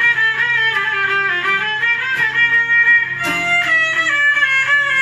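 Violin playing a folk melody over a strummed plucked-string accompaniment, purely instrumental.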